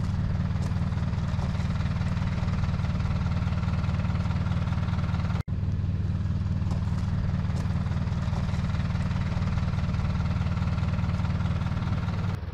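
Vehicle engine idling steadily, an even low hum with no revving. The sound breaks off for an instant about five and a half seconds in.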